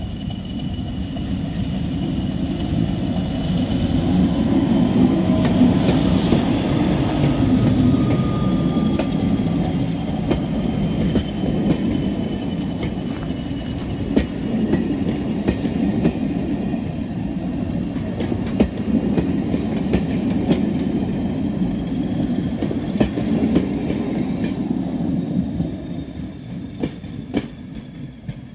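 Diesel-hauled passenger train passing close by. The locomotive's rumble builds up and is loudest about five to eight seconds in. The coaches follow, their wheels clicking over the rail joints, and the sound fades near the end as the train moves away.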